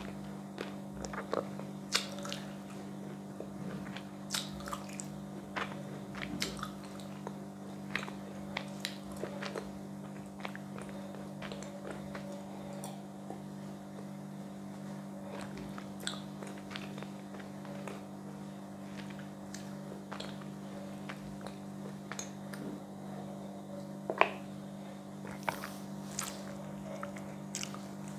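Close-up mouth sounds of a person chewing edible chalk and swallowing: irregular sharp clicks and small crunches, one louder click a little before the end. A steady low hum runs underneath.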